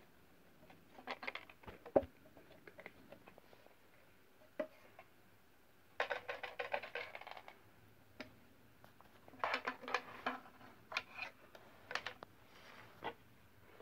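A cat pawing into a wooden puzzle box, knocking at the wood and the balls inside: scattered light knocks, with two spells of quick clattering about six and nine and a half seconds in.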